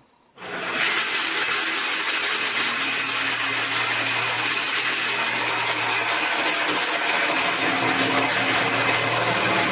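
A motor-driven machine starts up about half a second in and keeps running steadily with a loud hiss and a low hum.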